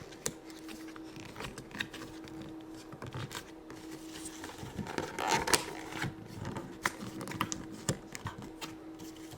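Scattered light clicks and paper-like rustles of a cardboard playset background being handled and set in place by hand, with a louder rustle about five seconds in.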